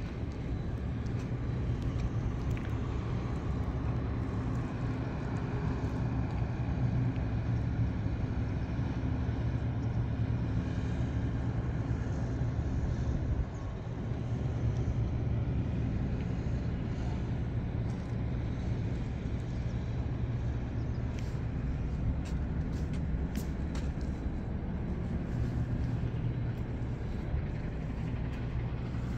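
A large engine running steadily with a low, even hum, dipping briefly about halfway through.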